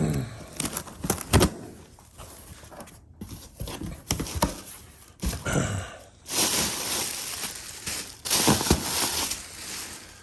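Packaging being handled and torn open by hand: scattered knocks and clatter, then a few seconds of loud rustling and tearing from about six seconds in.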